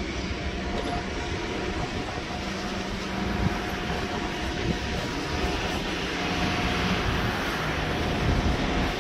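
Loaded container wagons of a freight train rolling past: a steady rumble of steel wheels on the rails with a faint steady whine and a couple of short knocks, growing slightly louder near the end.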